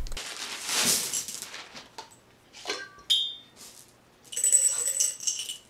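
Jelly beans clinking against a glass jar: a sharp clink with a short ring about three seconds in, then a brief jingling rattle near the end.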